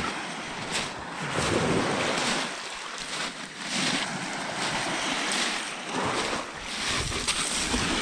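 Small waves breaking and washing over a pebble beach, the surf swelling and easing every second or two.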